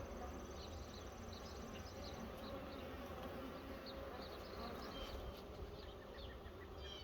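Honeybees buzzing around an open hive during a frame inspection: a faint, steady hum with small scattered ticks.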